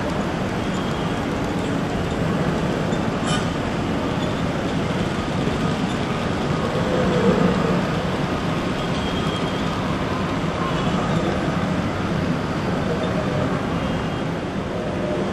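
Steady running noise of H0-scale model trains on an exhibition layout, a continuous rumble of wheels on track blended with hall hum, with a faint tick about three seconds in.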